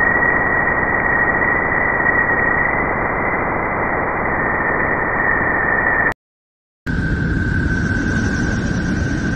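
Space sound recording of Jupiter, planetary radio emissions turned into audio: a steady hiss with a steady whistle-like tone above it, which cuts off about six seconds in. After a brief silence a second such recording, of Uranus, begins: a low rumble with a steady, slightly lower tone.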